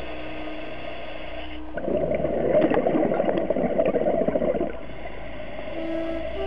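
Scuba regulator breathing underwater: a long, loud rush of exhaled bubbles starts about two seconds in and lasts about three seconds, with quieter stretches before and after.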